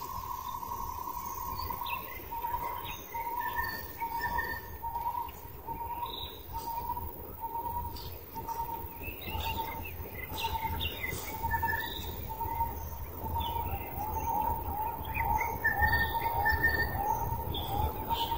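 Birds calling: one repeats a short note about twice a second, the notes coming faster and closer together near the end, while other birds give scattered higher chirps.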